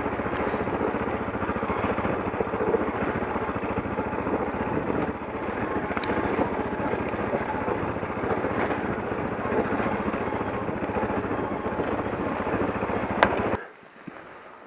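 KTM 640 Adventure single-cylinder engine running steadily as the motorcycle rides down a rocky gravel track, with crunching and rattle from the rough surface. The sound cuts off suddenly near the end as the bike stops.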